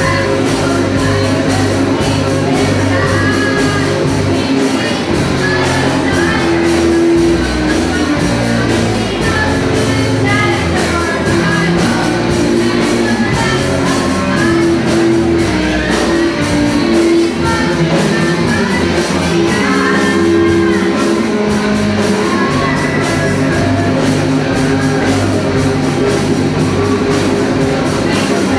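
Live rock band playing loudly: electric guitars, electric bass and drum kit together.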